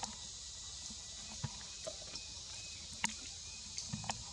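Forest background with a steady high hiss and a few scattered sharp clicks and taps, the loudest about three seconds in and a quick cluster near the end.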